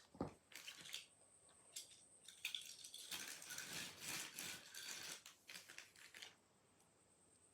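Faint clicks and rustling of packaging being handled, with a longer stretch of rustling in the middle that stops near the end.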